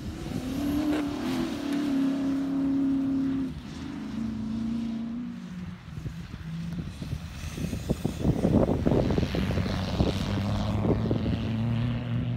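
Distant comp safari off-road racing car's engine under hard throttle across a field. The engine note holds, drops in steps, then climbs again near the end, with a stretch of rough, uneven noise about eight seconds in.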